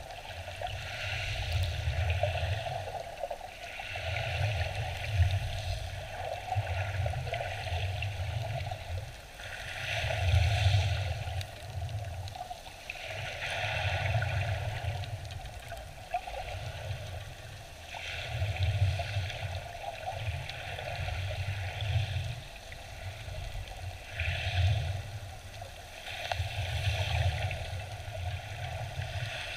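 Shallow sea water heard underwater: a muffled low rushing and sloshing that swells and fades every couple of seconds with the surge of small waves overhead.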